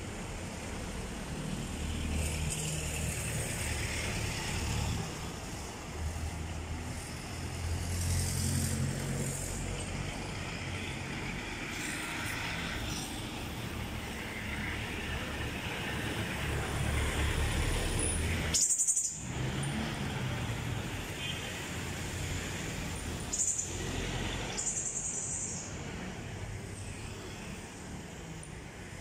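City street traffic: car and motorcycle engines running and passing close by over steady road noise. A few short high hisses come in the second half, and the sound cuts out for a moment a little after halfway.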